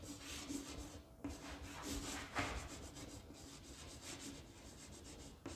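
Chalk writing on a chalkboard: a series of faint scratching and rubbing strokes as words are written out.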